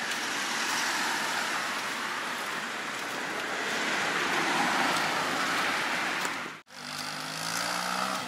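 Steady road traffic noise, a hiss of tyres and engines going by, broken by a brief dropout about six and a half seconds in, after which a low engine hum is heard.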